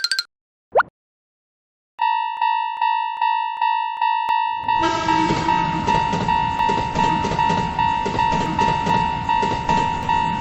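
A short rising boing, then from about two seconds in a Japanese railroad crossing warning bell ringing a steady ding-ding, about two and a half strikes a second. From about halfway through, a train passes with a rumbling clatter under the bells.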